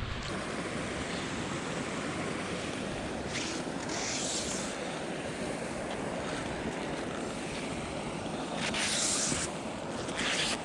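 Steady wind rushing over the microphone, with a few brief higher hissing gusts around four seconds in and near the end.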